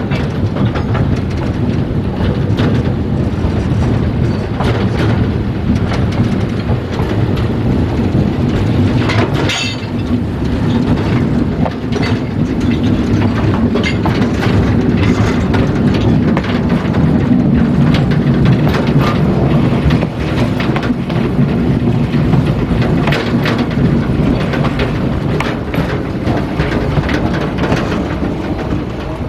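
Narrow-gauge steam train running along its track: a loud, steady rumble with many clattering clicks of wheels and rails.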